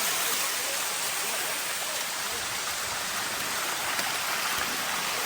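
Water of a waterfall running steadily over rock, an even rushing hiss.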